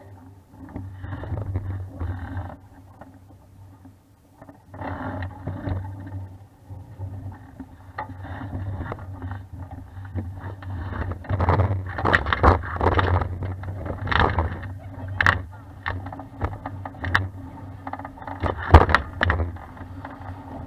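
Noise aboard a 420 sailing dinghy under way: a steady low rumble with rushing noise, then, from about ten seconds in, many sharp slaps and knocks.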